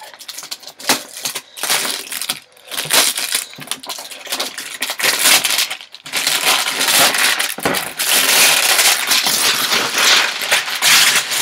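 Plastic wrapping being pulled, torn and crumpled off a cardboard box: a dense crackling rustle with many small clicks, growing louder and more continuous about halfway through.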